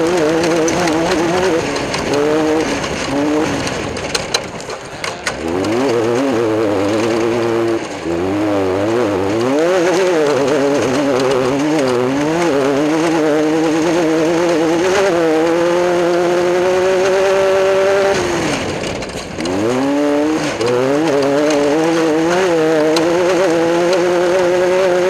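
Class 10 off-road race car's engine running hard, its revs swinging rapidly up and down, then climbing steadily. The revs drop sharply about three-quarters of the way through and build up again.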